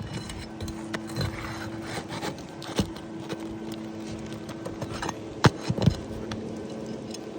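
Pry bar and hammer working roofing nails out of three-tab asphalt shingles: scattered clicks and knocks, with the two sharpest close together about five and a half seconds in. A steady hum runs underneath.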